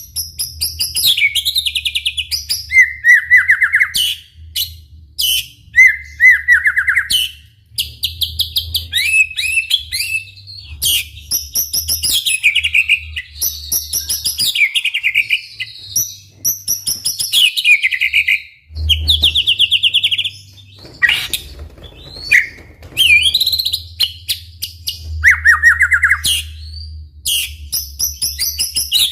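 White-rumped shama (murai batu) singing a long, vigorous run of varied phrases: rapid trilled bursts, gliding whistles and chattering notes, one after another with only short pauses.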